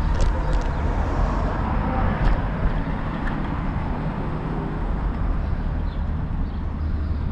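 Steady outdoor rumble, like road traffic or wind on the microphone, with a few faint clicks or taps about two seconds in.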